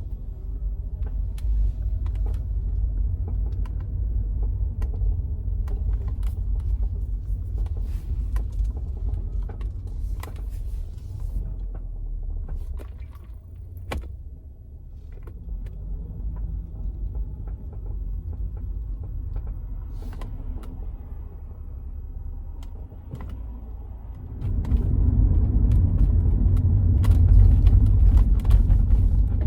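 2002 Subaru Outback's suspension creaking and clicking in scattered short sounds over a steady low rumble, the rumble getting louder about 24 seconds in. A mechanic puts the noise down to several worn suspension parts.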